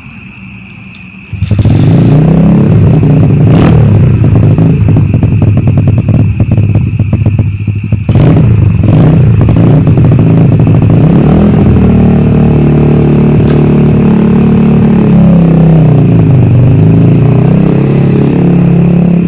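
Small dirtbike engine running and revving, its pitch climbing and dropping over and over, coming in loud about a second in. It is the bike's test run on a freshly fitted carburettor.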